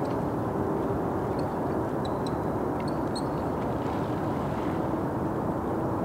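Steady rumble of rush-hour traffic on a nearby freeway, with a few faint, high bird chirps one to three seconds in.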